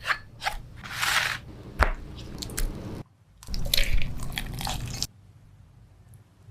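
Crunchy bites into crispy chicken with chewing, in two bursts of crunching separated by a short break; it goes quieter about five seconds in.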